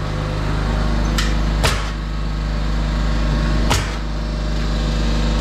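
An air compressor running steadily with a low hum, and a pneumatic nail gun firing sharp clacks into a wooden floor joist, two loud shots about two seconds apart and two fainter clicks.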